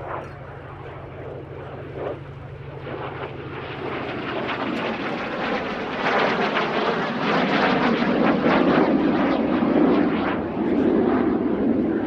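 Percival Provost's Alvis Leonides nine-cylinder radial engine droning in flight. It grows steadily louder as the aircraft comes closer and is loudest in the second half.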